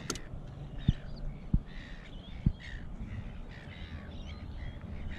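A bird calling over and over in short calls. Three dull knocks come in the first half.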